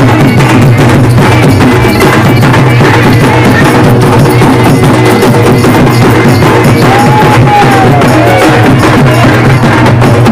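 Loud, percussion-heavy folk music for a Raut Nacha dance: fast, dense drumming over steady low held tones, with no break.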